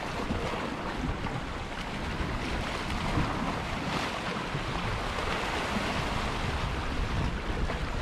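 Sea waves washing against shoreline rocks, with wind buffeting the microphone as a steady low rumble.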